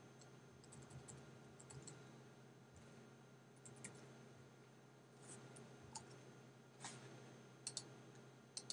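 Near silence with faint, scattered clicks from a computer mouse and keyboard, a dozen or so irregularly spaced, over a low steady hum.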